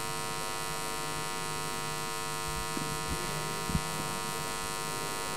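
Steady electrical buzz with many even overtones, running under the room sound, with a few faint knocks about three to four seconds in.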